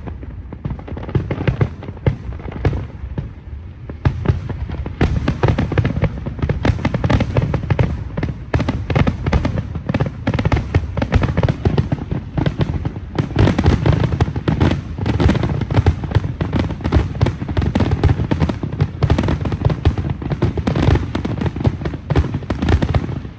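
Fireworks going off in a dense, rapid barrage of bangs and crackling bursts, thickening into a near-continuous volley about five seconds in.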